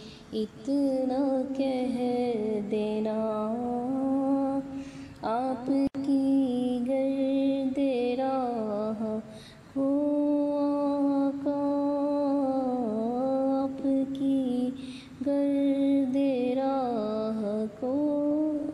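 A woman singing a naat unaccompanied, in long held notes that bend up and down. She sings four phrases with short pauses between them.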